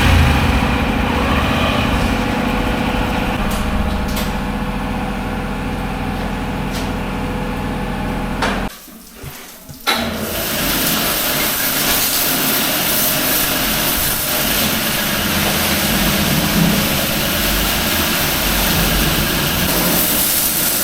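Honda SP 125's single-cylinder engine running steadily. About nine seconds in, the sound drops away for about a second, then the engine comes back with more hiss over it.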